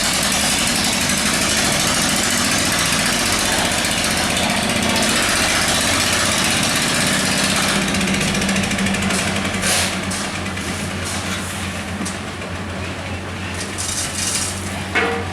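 An engine-driven construction machine running steadily: a steady hum under dense mechanical noise, easing off a little over the last few seconds.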